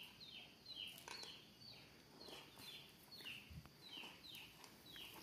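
Faint, even series of short high chirps, each falling slightly in pitch, about three a second, with a few soft clicks.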